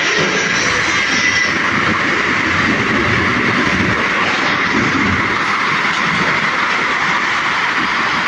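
Automatic log sawing line running, its chain conveyors and circular saws making a steady, loud machine noise.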